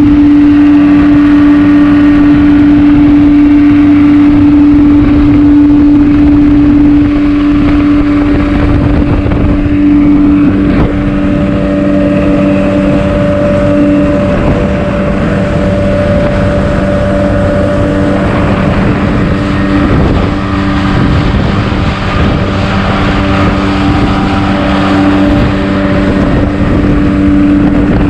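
A 40 hp outboard motor drives a small speed boat at speed with a steady drone, over rushing wind and water noise.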